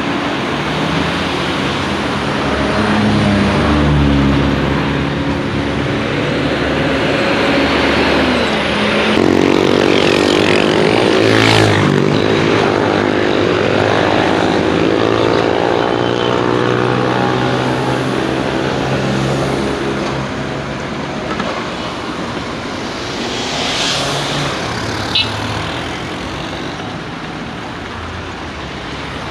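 Motor vehicles running and passing on the road, engine hum over tyre noise, with the loudest vehicle going by about eleven seconds in and another smaller pass near the end.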